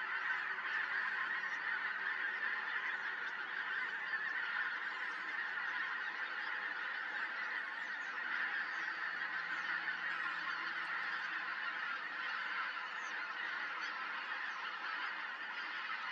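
Dense chorus of a large flock of waterbirds calling at once, their calls merging into a steady din, with short high whistled notes scattered over it.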